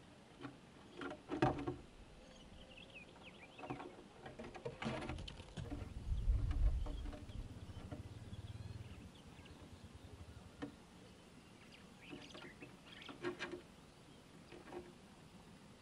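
Squirrel feeding at a wooden board: irregular crunching, gnawing and scrabbling clicks in short clusters, thickest in the first few seconds and again in the last few. A low rumble swells for a few seconds in the middle, and faint bird chirps come near the start.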